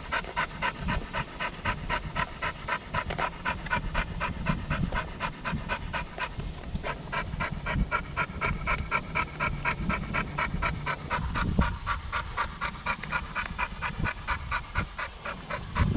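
Dog panting hard and fast close by, about four breaths a second, over a low rumble.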